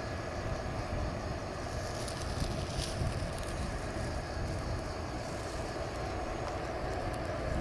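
Steady outdoor background noise: a low rumble under a faint hiss, with a thin steady tone and a few faint ticks.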